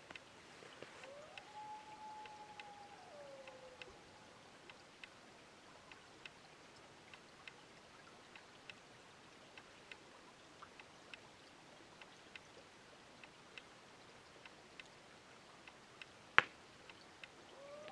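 A distant wild dog howling: one long, faint howl that rises, holds steady and then falls, starting about a second in, and another beginning to rise near the end. Faint regular ticks about twice a second run underneath, with one sharp click shortly before the end.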